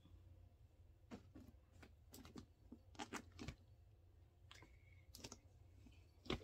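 Faint handling noise: a Louis Vuitton Papillon 30 handbag being pulled out of its cotton dust bag and handled, with fabric rustling and scattered light clicks and taps.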